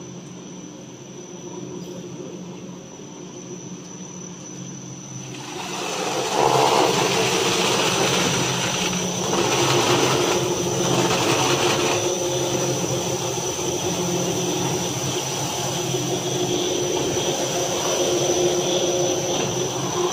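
Industrial brush sanding machine running: a steady hum from its motors and belt drives with a constant high whine over it. About six seconds in it becomes much louder, with a broad rushing noise from the spinning sanding brushes and dust extraction.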